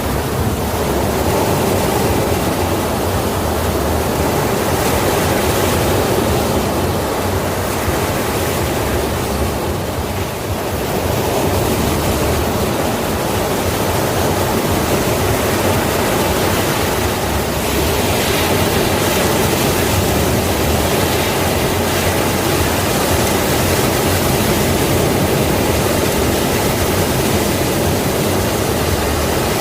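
Sea waves, a continuous rush of surf with a brief lull about ten seconds in.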